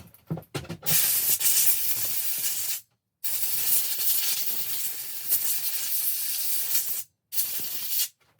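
Compressed air hissing in three blasts, a short one, a long one of about four seconds, then a brief one, blowing sawdust out of the inside of a chainsaw.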